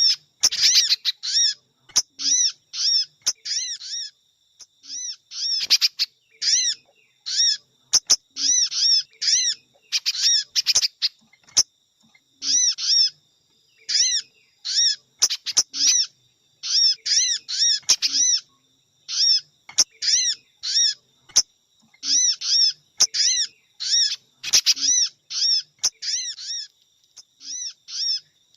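Bird-trapping lure recording of sogon calls mixed with spiderhunter calls: short, sharp, high chirps, each rising and falling, repeated in quick runs of a few notes with brief silent gaps between runs.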